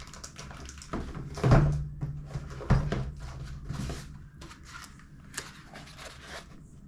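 Handling noise from unpacking a microphone box: a string of knocks, clicks and rustles of packaging and parts being moved about, with two louder thuds about a second and a half and nearly three seconds in.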